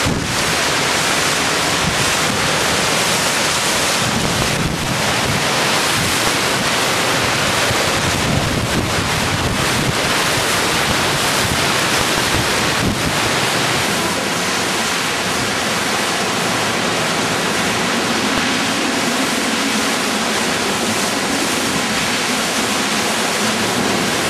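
Hurricane wind and driving rain, a loud, steady rush with wind buffeting the microphone. About fourteen seconds in, the low rumble drops away and the rush steadies.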